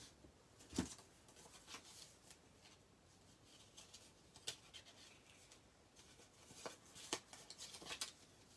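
Faint rustling and light tapping of paper being handled and moved about on a craft table, with one soft knock about a second in and a run of light clicks near the end.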